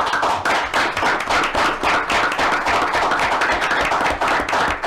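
A roomful of people applauding: dense, fast hand-clapping that holds steady and thins out near the end.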